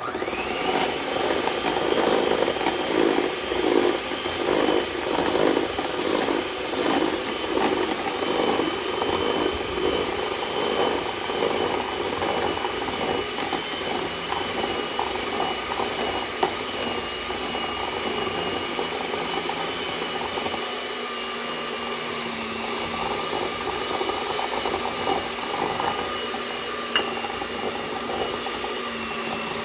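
Electric mixer switched on and running steadily, its motor whine rising briefly as it spins up, beating cake batter while the dry ingredients are mixed in.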